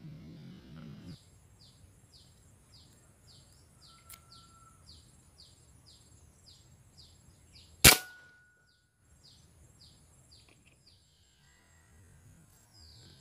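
A single sharp shot from a scoped hunting rifle about eight seconds in, the loudest sound, cut off quickly. Behind it, a short high chirp repeats two to three times a second for most of the first nine seconds.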